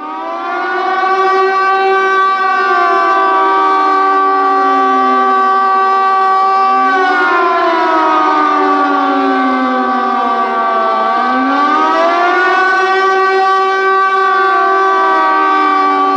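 Civil defense air raid siren sounding loud, coming up to full volume within the first second. A steady chord of tones holds throughout, while other tones slide slowly down and back up across it several times in a wail.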